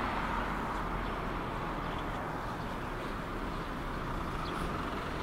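Steady outdoor background noise: an even rushing hiss with a low rumble underneath and a few faint ticks.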